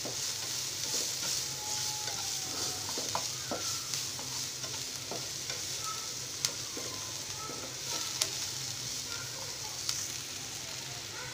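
Chopped onion and green chillies sizzling in hot oil in a nonstick frying pan, stirred with a plastic spatula that scrapes the pan and gives a few sharp taps against it.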